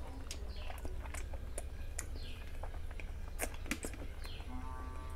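Close, wet chewing and mouth clicks of someone eating fatty mutton curry and rice by hand, over a steady low hum. A few short high chirps falling in pitch sound in the background, and a held, pitched call begins near the end.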